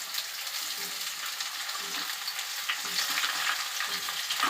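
Chopped onions sizzling in hot oil in a kadai, stirred with a spatula in strokes about once a second, with a sharper knock near the end.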